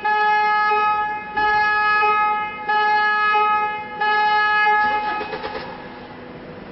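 Car alarm sounding through the Land Rover Discovery's horn: four long, steady horn blasts of a little over a second each with short breaks, stopping about five seconds in.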